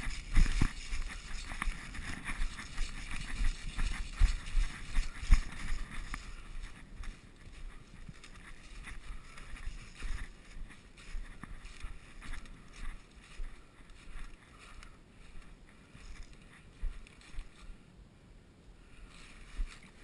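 Footsteps moving quickly through undergrowth, with rustling of brush and gear, for about six seconds, then slower, quieter steps and scattered knocks and ticks.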